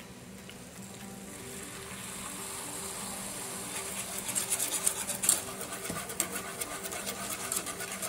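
Hot sauce sizzling in a small pot of melted butter and garlic, the hiss swelling over the first few seconds. From about halfway, a wire whisk stirs the sauce with quick clicking and scraping strokes against the pot.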